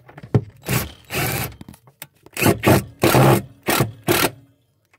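A screw being driven into the camper's wooden frame to fasten a wiring-harness clamp, heard as about five short, loud bursts of rasping noise.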